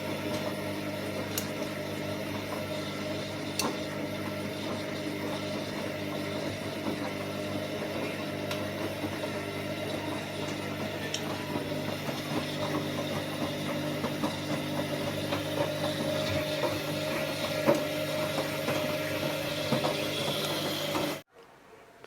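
Washing machine running with its casing opened up: a steady motor hum with a few sharp clicks, then it cuts off abruptly near the end.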